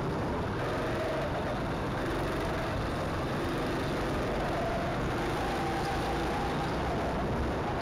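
Go-kart being driven around a track, its engine running steadily. The engine note rises and falls a little through the corners.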